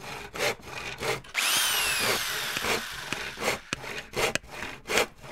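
Woodworking tool sounds: repeated back-and-forth saw strokes through wood. About a second and a half in, a power tool whines up and then winds down for about a second.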